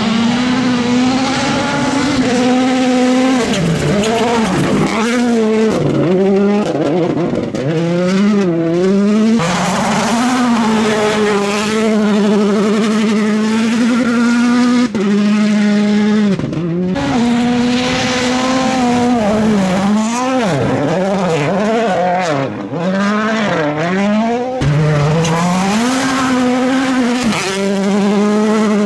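Rally cars' turbocharged 1.6-litre four-cylinder engines revving hard on a gravel stage. The pitch climbs and drops over and over as they accelerate, change gear and lift off for corners, with a hiss of tyres and loose gravel. Several separate passes follow one another with sudden breaks between them.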